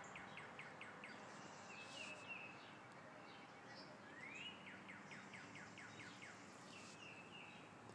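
Faint songbird song: runs of short, quick downward-slurred notes, about five or six a second, one run at the start and a longer one about four seconds in that opens with a rising note, with a few brief high chirps between, over a faint steady outdoor hiss.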